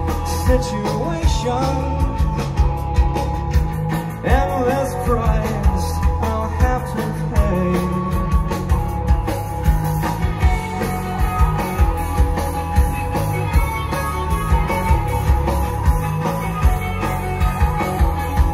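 Rock music played by a band: drums keep a steady beat under guitars and bass, with no clear vocal line.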